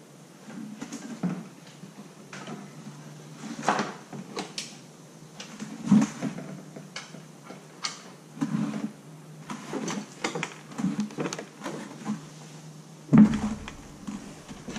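Irregular knocks, scrapes and rustles of a Tesla Model Y's large headliner panel being pulled out of the car, rubbing and bumping against the pillars and door frame, with a heavier thump near the end.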